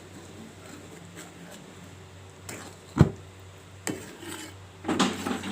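Kitchen utensil knocking and clinking against a cooking pot: one sharp knock about three seconds in, a lighter one just before four seconds, and a scraping rustle near the end.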